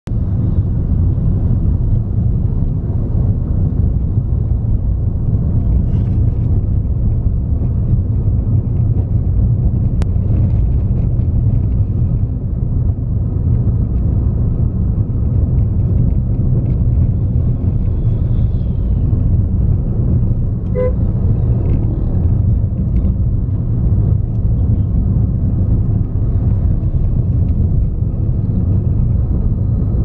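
Steady low road and engine rumble heard inside a moving car's cabin, with one short car horn beep about two-thirds of the way through.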